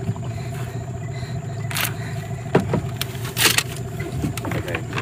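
Small boat's outboard motor running steadily. A few sharp knocks and clatters sound over it about two to three and a half seconds in.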